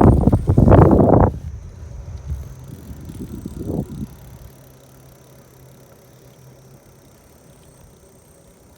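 Wind buffeting the microphone in loud gusts during a bicycle ride for about the first second, then softer rattling that fades out by about four seconds, leaving a faint low hum.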